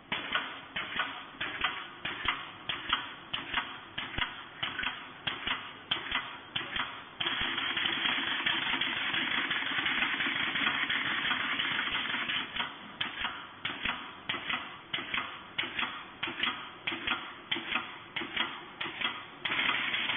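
Automatic wire-mesh welding machine cycling its welding head, giving sharp, evenly spaced strokes about two to three a second. About a third of the way in the strokes give way to a steady rushing noise for about five seconds. Then the strokes resume, and the steady noise returns near the end.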